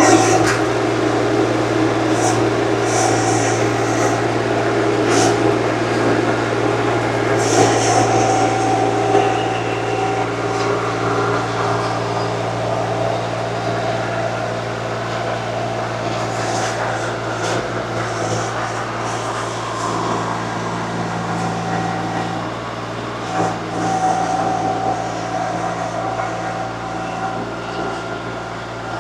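Small engine of a compact earthmoving machine running steadily under hydraulic load, with a low steady hum and a higher whine, and now and then a short knock or scrape as it works the dirt road.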